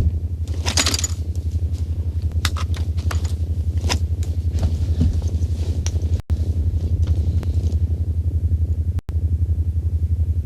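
Sci-fi time machine sound effect: a low, rapidly pulsing hum, with scattered clicks, scrapes and a couple of brief whooshes on top.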